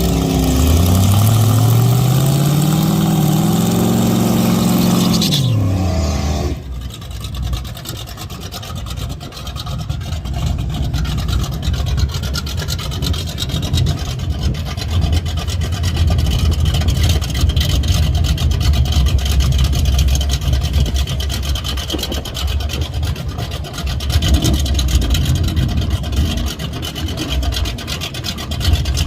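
Drag car engine at full throttle, its pitch climbing steadily for about five seconds before the driver lifts off and it falls away. After that the engine runs low and uneven at light throttle.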